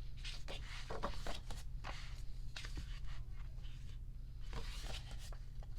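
Pages of a large photo book being turned and handled: a string of short paper rustles and taps over a steady low hum.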